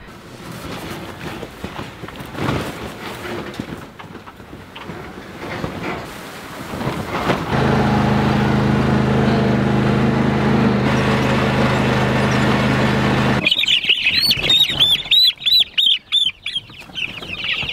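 A riding lawn tractor's engine runs steadily, then cuts off about 13 seconds in. A brooder full of three-week-old broiler chicks then peeps loudly, dense high chirps overlapping one another.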